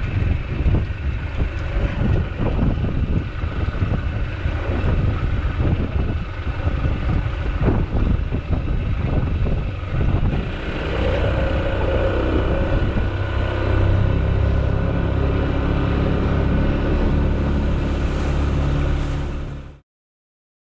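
Boat engine running under way, with wind buffeting the microphone in the first half; from about halfway the engine's steady drone comes through more plainly. The sound cuts off abruptly near the end.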